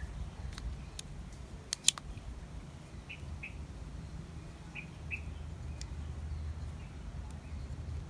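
Sharp metal clicks from a Leatherman Wave+ multitool as its folding tools are worked and snap into place, the loudest about two seconds in. A bird chirps in short pairs of notes, twice, over a low steady rumble.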